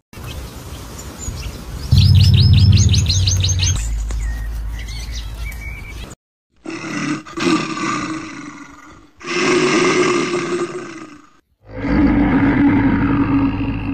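A small songbird gives a fast, high trill for about two seconds over a low rumble. Then a large animal gives three long, loud roaring calls, one after another with short silent gaps between them.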